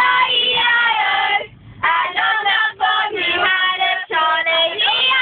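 Young girls singing a song, with long held notes and a short pause about a second and a half in.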